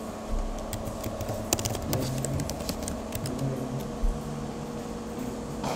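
Computer keyboard typing: a quick run of keystrokes over about two and a half seconds, then a single key click near the end.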